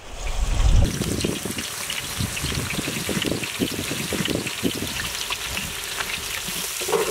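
Sliced onions hitting hot oil in a large metal cooking pot, then sizzling and crackling steadily as they fry. The sound is loudest in the first second as the onions drop in. Near the end a perforated metal ladle stirs them.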